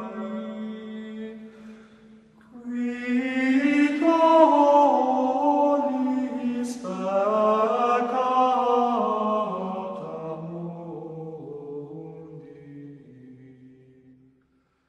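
Chanted vocal music: long, held voices slowly shifting pitch over a low sustained note, in three phrases. It fades out near the end.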